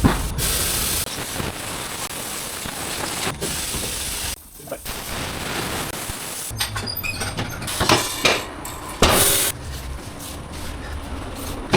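Tyre-shop workshop noise: short hisses of compressed air, twice, with a few sharp metal knocks from work on a large wheel.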